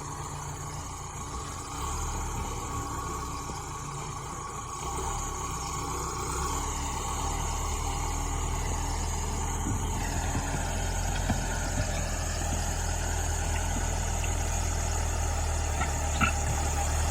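Diesel engine of a Case 580L backhoe loader running steadily while it pushes snow, the engine note growing louder in steps over the stretch.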